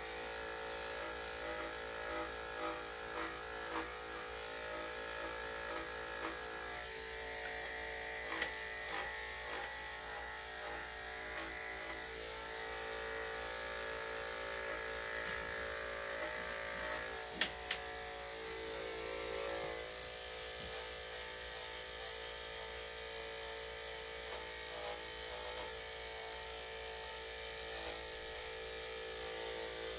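Electric dog grooming clippers running with a steady buzz, the tone shifting as the blade works through the dog's coat. A single sharp click about 17 seconds in.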